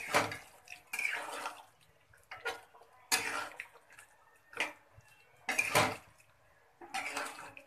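Cooking spoon stirring thick curry gravy in a metal pan: a series of wet, sloshing strokes with scrapes against the pan, about eight in all, with short pauses between.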